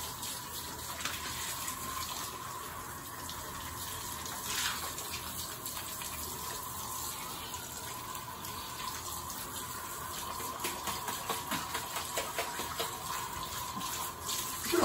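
Handheld shower head spraying water onto a wet dog's coat, a steady hiss of running water with a faint steady whine under it, and more splashing near the end.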